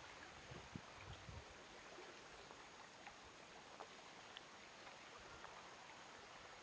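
Near silence: a faint steady outdoor hiss with a few soft ticks, and a low bump about a second in.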